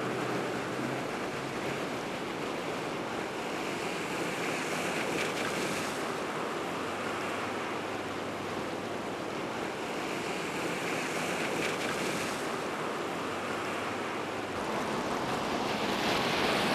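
Steady rushing of fast-flowing floodwater, a dense even noise with no rhythm, growing somewhat louder near the end.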